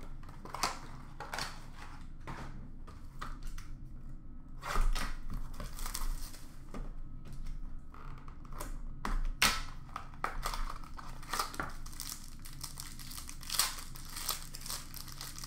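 Trading-card pack wrappers crinkling and tearing as 2020-21 Upper Deck SP Game Used hockey packs are opened and the cards handled, in a run of short, irregular crackles and rustles.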